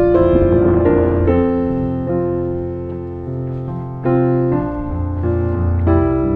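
Background music: piano playing slow held chords over a low bass line, with fresh chords struck about four and six seconds in.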